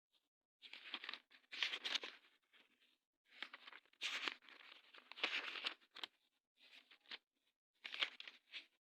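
Paper being flipped: bunches of quick rustling, crinkling flicks with short pauses between them.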